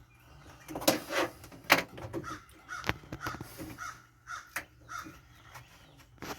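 A run of short, evenly repeated calls, about two a second, that sound like a bird cawing, among several sharp knocks from handling work.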